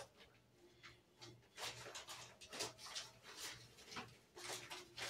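Faint rustling and scratching of jute twine as it is pulled and knotted around a canning jar's lid, in a run of short soft scrapes.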